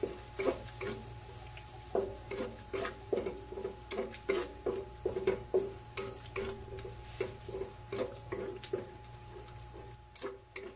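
A utensil stirring food in a pan, knocking against it in an uneven run of about two or three knocks a second, over a steady hum.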